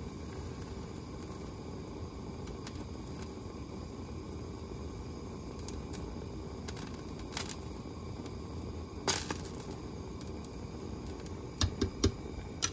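Gas torch flame burning steadily with a low, even rush as it heats a penny for soldering. A few sharp clicks stand out, the loudest about nine seconds in.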